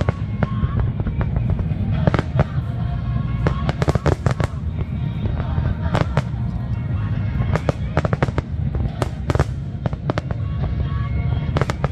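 Fireworks bursting in an aerial display: sharp bangs and crackling reports, some in quick clusters, over a continuous deep rumble.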